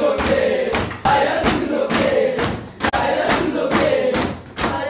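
A group of boys chanting together while slapping their hands on a tabletop in a steady rhythm, about three slaps a second.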